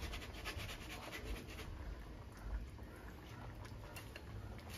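Faint, irregular scratching and light ticks from boiled tamarind pulp being worked in a metal strainer held over a wok.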